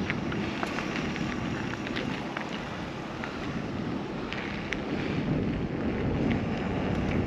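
Wind rushing over the microphone and tyres rolling over the ground as a Husqvarna Hard Cross HC7 e-mountain bike is ridden, with scattered small clicks; the electric drive itself is hardly heard.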